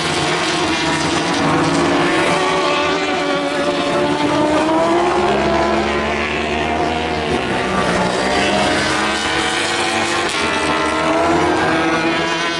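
Racing motorcycle engines running hard as the bikes pass on the circuit, their pitch rising and falling throughout, with a rising note near the end.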